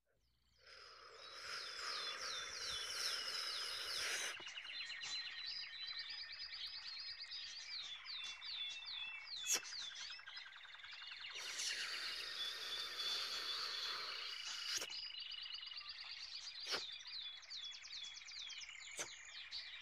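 Forest ambience: many small birds chirping and whistling in quick repeated notes over an insect-like background. A rushing hiss swells in twice, and there are a few sharp clicks.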